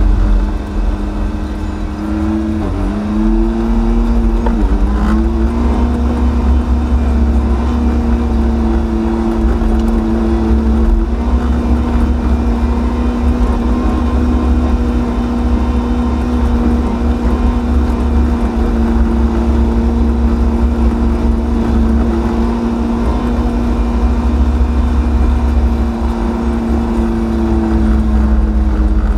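John Deere 6115M tractor's diesel engine running steadily while driving on the road, heard inside the cab as a steady hum over a deep rumble. Its pitch dips briefly twice a few seconds in.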